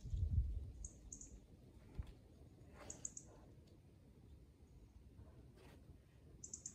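Faint, very high-pitched bird chirps in short quick runs, heard a few times; a low rumble at the start and a single sharp knock about two seconds in.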